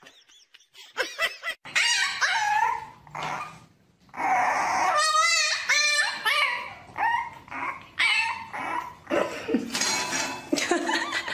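A dog barking and yipping in a run of short, high calls, some bending up and down in pitch.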